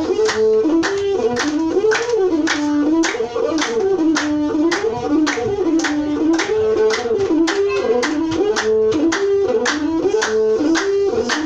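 Masinko, the Ethiopian one-string bowed fiddle, playing a stepping, sustained melody in traditional azmari style, over a steady beat of sharp strikes about three times a second.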